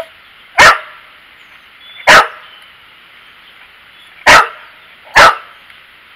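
Boxer dog barking four times, loud single barks, the last two less than a second apart.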